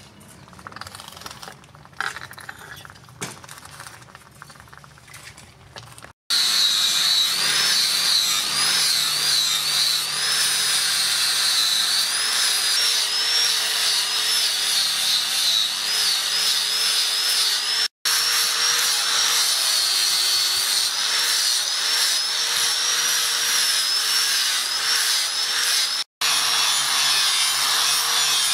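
A few light knocks, then about six seconds in an electric angle grinder with a sanding disc starts abruptly and runs loudly against the steel knife blade, its whine wavering with the pressure. The grinding breaks off for an instant twice.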